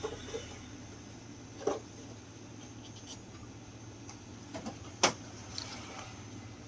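Shop interior ambience: a steady low hum with a thin high whine, broken by a few sharp clicks and knocks. The louder ones come about 2 s in and about 5 s in, the second the loudest.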